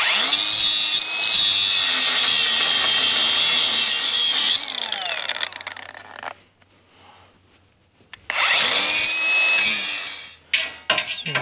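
Angle grinder with a cutoff wheel cutting through a steel frame bracket in two runs: a high steady whine over harsh cutting noise, each run winding down with a falling pitch when the trigger is let go. A few sharp metal knocks near the end.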